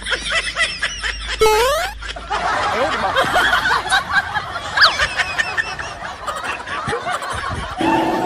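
Snickering laughter, a run of quick breathy giggles. About a second and a half in, a brief rising whistle-like sweep sounds over it.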